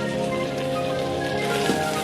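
Background music over a steady sizzle of food frying in a pot.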